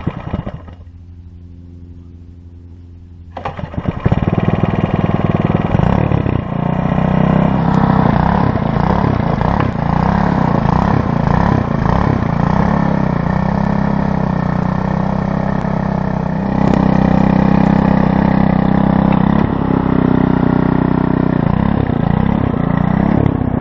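Earthquake Versa front-tine tiller's 99cc four-stroke Viper engine idling steadily for a few seconds, then throttled up sharply about three and a half seconds in. It then runs loud and hard under load as the tines churn dry sandy soil, its note rising and falling with the digging.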